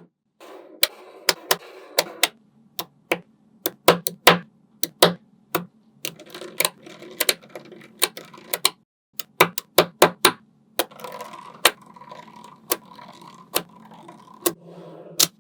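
Small magnetic balls clicking as they snap together: many sharp, irregular clicks, a few per second. A faint steady hum runs underneath.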